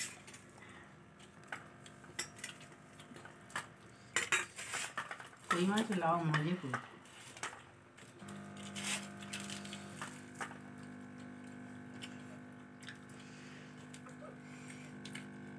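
Hands mixing and scooping rice on stainless steel plates, with scattered light clinks and scrapes of fingers and bangles against the metal. A short bit of voice comes about six seconds in, and a steady low hum starts about eight seconds in.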